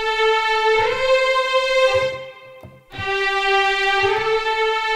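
EastWest Hollywood Strings sampled violin section (the 18-violin legato portamento patch) playing slow, sustained legato notes that glide from one pitch to the next, in two phrases with a short break just after two seconds, heard through a long church reverb.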